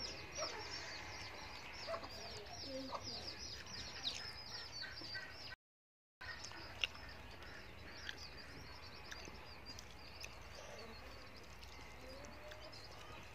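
Small birds chirping in a busy, rapid chatter, thinning out in the second half, with a few lower calls among them. The sound cuts out completely for about half a second just before the middle, and a single sharp click comes soon after.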